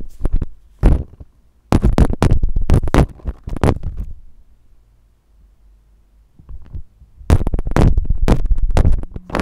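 Cheap Chinese-made microphone clattering and knocking as it is touched and handled, in bursts with a quiet pause of a few seconds in the middle. The rattle on every touch is the microphone's defect.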